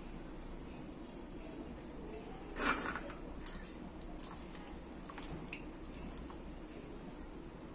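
Hands rinsing cubed bottle gourd in a steel bowl of water: soft squelching and sloshing, with a few light clicks of pieces against the steel. One brief, louder noise comes about two and a half seconds in.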